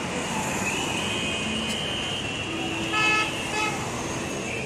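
Road traffic noise with a vehicle horn honking about three seconds in, followed by a shorter, quieter toot.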